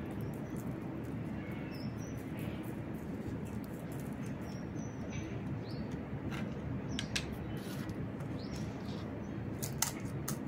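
Small birds chirping now and then over a steady low background hum. Near the end, a few sharp crisp cracks as a hollow fried puri shell is poked open with a thumb.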